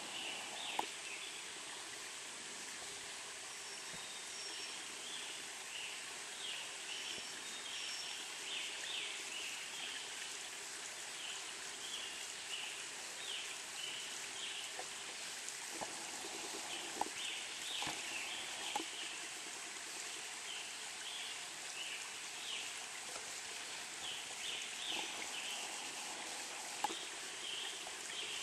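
A woodland brook running steadily, its babble a continuous hiss, with a few brief high bird calls and some faint soft knocks.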